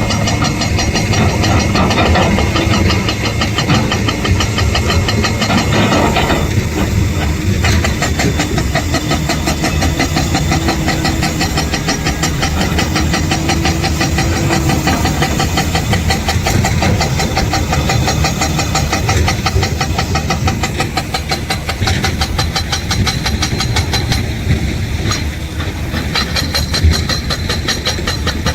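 Heavy diesel engine of earthmoving machinery running steadily under load, with a fast, even engine pulse.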